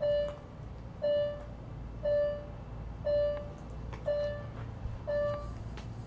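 Electronic alert beeps from the home-built weather alert alarm system's speaker: six short, steady mid-pitched beeps, about one a second.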